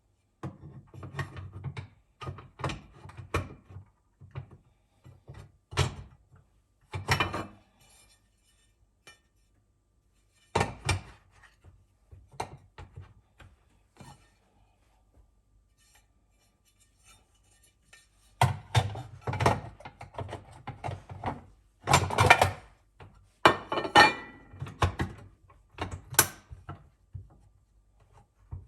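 Kitchen handling sounds: dishes, utensils and objects being set down and moved on a counter, in clusters of knocks, thunks and light clinks with short quiet gaps between them.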